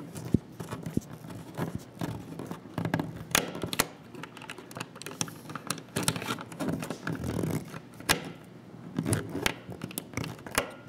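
Screwdriver tightening a terminal screw on a thermostat's wiring block: irregular small clicks and scrapes of metal on plastic, with handling of the wire.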